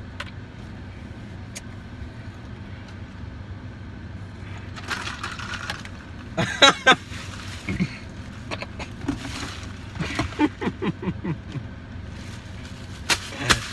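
Steady hum of a parked car's running engine, with a plastic bag rustling and crinkling. The bag makes two sharp, loud crackles about six and a half seconds in, then a quick run of smaller crinkles.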